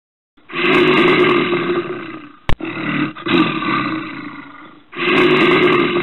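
Bear roaring: three long, rough roars of about two seconds each, each tailing off, with a short sharp click between the first two.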